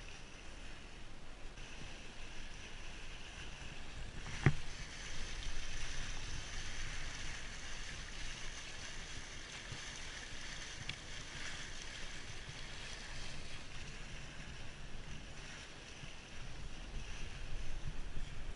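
Water rushing and hissing along the hull of a sailing yacht under way, with wind on the microphone. A single sharp knock about four and a half seconds in.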